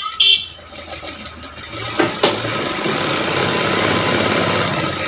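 Straight-stitch sewing machine running a seam through a blouse piece and its lining: a fast, steady run of needle strokes that starts about two seconds in and keeps going, after a few sharp clicks at the start.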